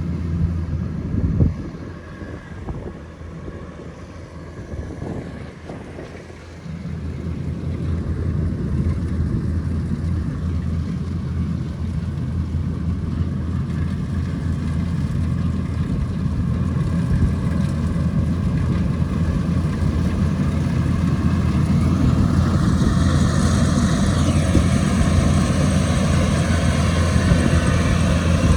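Rice harvesting machine's engine running with a steady low hum. It gets louder about six seconds in, and again near the end, when a higher-pitched noise joins it.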